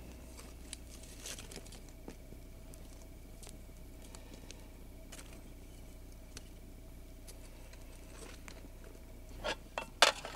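Campfire crackling with scattered small pops while the burning wood is stirred with tongs. Near the end, a few louder knocks as a cutting board is set down on a small slatted camp table.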